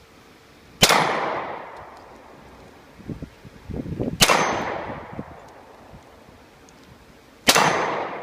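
Three shots from a Weatherby Vanguard .22-250 bolt-action rifle, about three and a half seconds apart, each followed by a long echoing tail. A short clatter of clicks comes just before the second shot.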